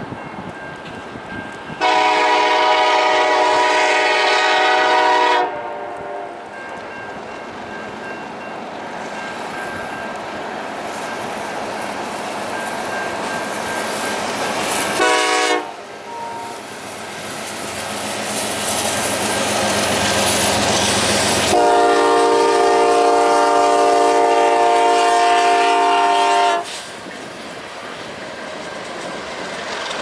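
Air horn of CN 8949, an EMD SD70M-2 diesel locomotive, sounding a long blast about two seconds in, a short one about halfway and another long one later, a grade-crossing warning. Between the blasts the locomotives' diesel engines and the freight cars rumble past with wheels clacking on the rail joints.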